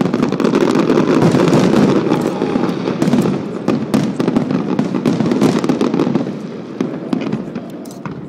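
Fireworks display: a dense barrage of booming bursts and crackling that thins out over the last couple of seconds.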